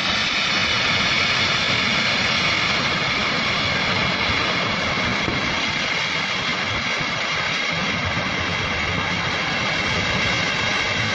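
Steady loud roar of the flooded Swat River rushing through the valley, with no single crash standing out from it.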